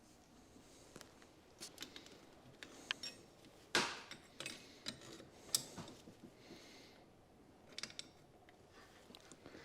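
Faint, scattered clicks and taps of hand tools and metal fittings being handled while the fuel pressure regulator is disconnected, with a couple of sharper knocks near the middle.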